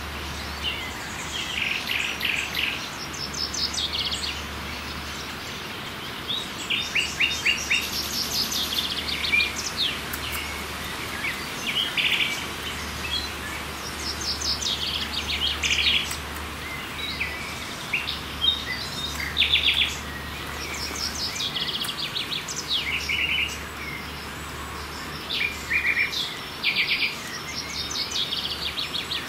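Small songbirds singing in woodland: many short phrases of rapid, repeated chirps and trills, overlapping through the whole stretch. A faint low rumble comes and goes underneath.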